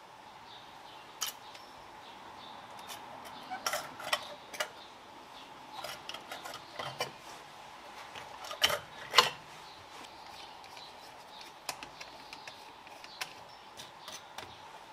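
Light metallic clicks and clinks of small carburettor parts and tools being handled and fitted, the float and its pin being reassembled; a scatter of short taps, the loudest two a little past the middle, over a faint steady hum.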